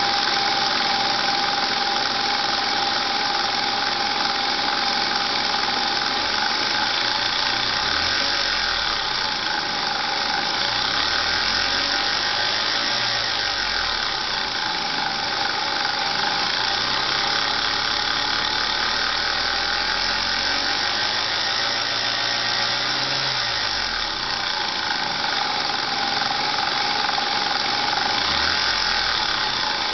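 Lexus IS300 engine running steadily in the engine bay, with a constant high-pitched whine or squeal over the engine noise: the weird noise the owner is trying to identify.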